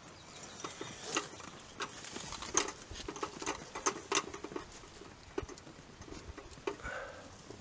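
Irregular soft taps, clicks and watery patter of a freshly landed carp being handled in a wet weigh sling during weighing, busiest a couple of seconds in.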